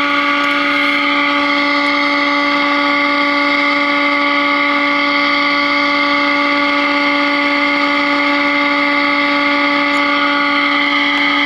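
A steady tone from a 1949 FADA AA5 tube radio's speaker. It is the signal generator's modulation tone, injected at the 456 kc intermediate frequency, coming through the set while its IF transformers are peaked for maximum during alignment. The tone is held unbroken and at an even loudness.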